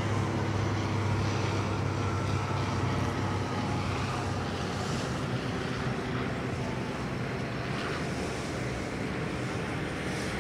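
DHC Dash 8-400 turboprop landing, its Pratt & Whitney PW150A engines and six-bladed propellers making a steady low drone, with a faint high whine that slides slightly down in pitch in the first few seconds. The drone fades a little as the plane reaches the runway.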